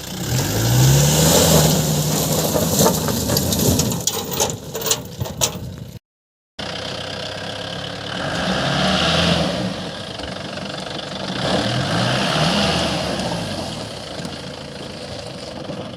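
Mahindra Bolero Camper's diesel engine revving as the pickup is driven over rough ground: the engine note rises about half a second in, and rises again around nine and twelve seconds. A run of knocks and rattles comes around four to six seconds in, and the sound drops out completely for half a second just after.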